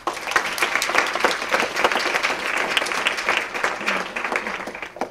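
Audience applauding, a dense patter of many people clapping that dies away near the end.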